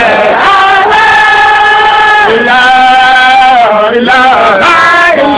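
A male voice chanting a Sufi zikr. It holds long sung notes, joined by winding, ornamented glides in pitch.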